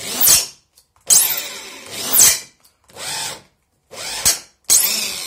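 Cordless drill driving an M5 tap into a brass air fitting, cutting the internal thread. It runs in about five short bursts with brief stops between, its whine sliding in pitch each time it speeds up and slows down.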